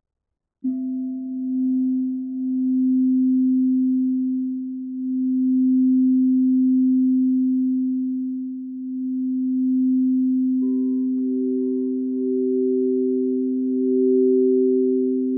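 A singing bowl sounding a steady, nearly pure tone that swells and fades slowly. About ten seconds in, a second, higher-pitched bowl joins and the two ring together.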